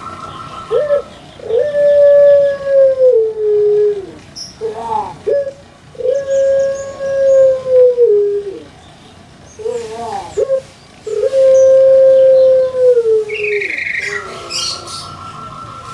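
Caged Barbary dove cooing its long, drawn-out call: three long coos, each held level and dropping in pitch at the end, each led in by a short note.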